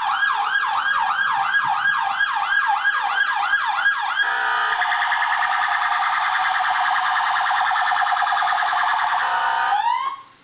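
Fire vehicle's electronic siren on a fast yelp, switching about four seconds in to a rapid high warble, then a short rising sweep that cuts off sharply near the end.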